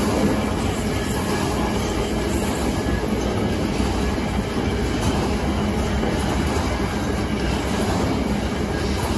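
A train running past on the rails: a steady, unbroken noise, heaviest in the low range.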